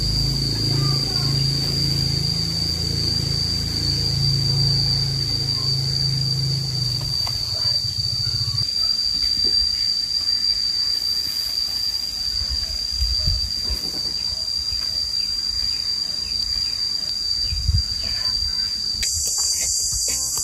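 Cicadas droning steadily in the trees, one unbroken high-pitched note, with a low hum under it for the first eight seconds or so.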